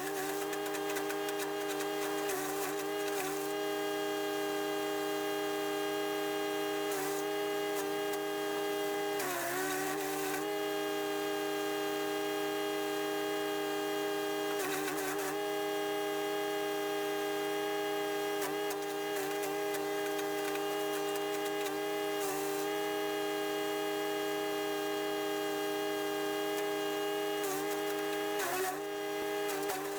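Chipease D1500E wood chipper's 420cc four-stroke engine running steadily. Several times it briefly sags in pitch with a short burst of rough noise, as it takes the load of branches going through the blades.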